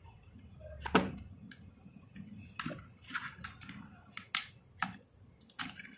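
Irregular light clicks and knocks from small objects being handled, with one louder knock about a second in.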